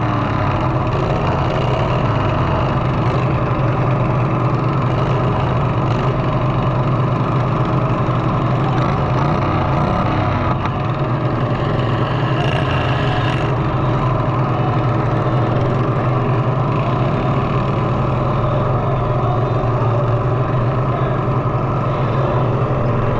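Lawnmower engines running steadily in a derby, with a constant low hum and no big revs.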